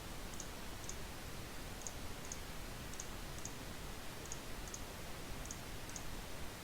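Computer mouse button clicking faintly in pairs, about one pair a second, over a steady low hiss and hum.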